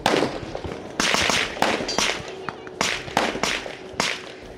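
Suppressed pistol-caliber carbine firing about eight semi-automatic shots at a steady, unhurried pace, each a sharp crack with a short tail.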